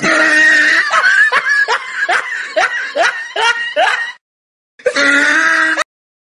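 Laughter sound effect: a run of about eight quick snickering laughs, followed after a short gap by a second, briefer burst of laughter near the end.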